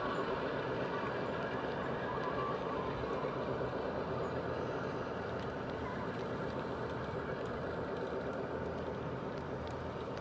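G scale model double-stack train rolling past: a steady rumble of the cars' wheels on the track, easing slowly as the lead locomotives move away.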